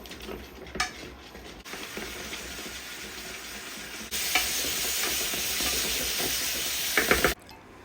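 Food frying in olive oil in a pan, sizzling steadily while a spatula stirs it, with a few light clicks of the utensil against the pan. The sizzle jumps louder about four seconds in and cuts off abruptly shortly before the end.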